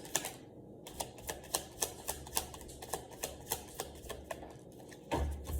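Tarot deck being shuffled by hand, the cards clicking in an even run of about four sharp snaps a second, with a heavier thump near the end.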